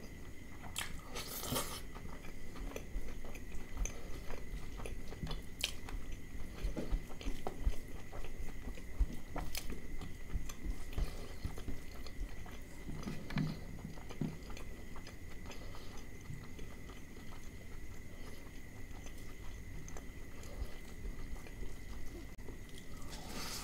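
Close-miked chewing and wet mouth sounds of a person eating mutton liver curry with rice by hand, with louder crunches about a second in and again near the end.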